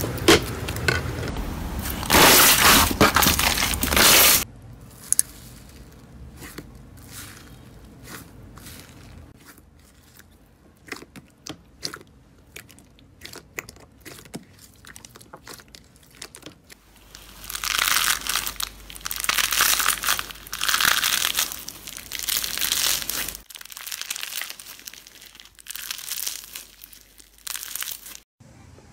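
Slime being squeezed, pressed and kneaded by hand: loud crunching and crackling in two long stretches, with quieter stretches of sticky clicks and pops in between.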